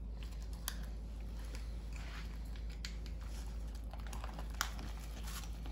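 Faint, scattered small clicks and soft wet handling noises as hands press lemon slices into the cavity of a raw whole striped bass, over a steady low hum.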